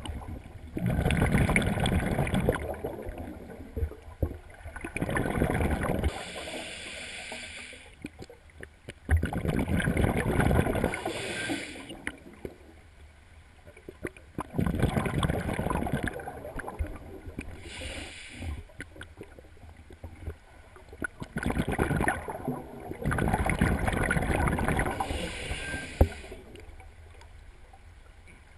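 Scuba diver's regulator breathing heard underwater: about five long bubbling exhalations a few seconds apart, each followed by a shorter hiss of inhalation through the regulator.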